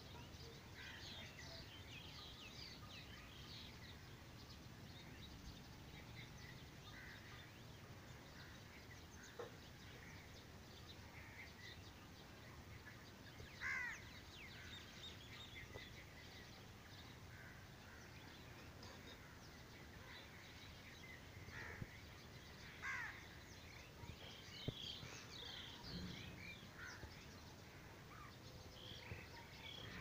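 Faint dawn chorus of many birds chirping and calling, with a louder call about fourteen seconds in and a couple more around twenty-three seconds, over a steady low hum.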